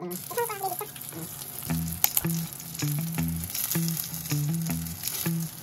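Food frying with a steady sizzle, over background music with a run of short low notes.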